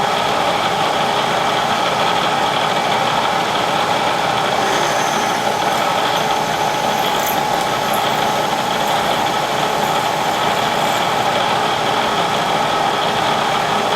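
Bridgeport milling machine running steadily with a constant mechanical whine while a clearance hole is drilled in the part. Faint high ticks and scratches come through in the middle.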